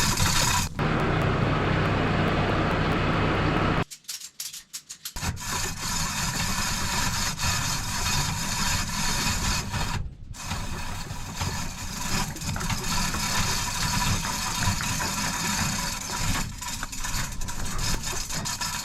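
Steady rubbing and scraping from hands-on work, cut off abruptly about four seconds in and again briefly near ten seconds.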